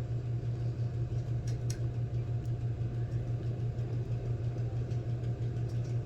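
A steady low mechanical hum with a slight pulsing, like a motor running without change.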